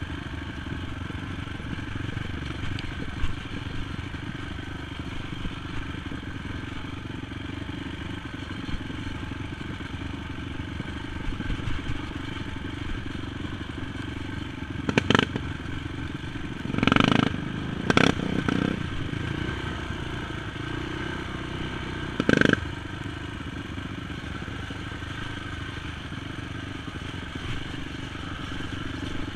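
Honda TRX450 sport quad's single-cylinder four-stroke engine running steadily while riding a muddy trail. A few loud, sharp knocks and a short burst of clatter come about halfway through.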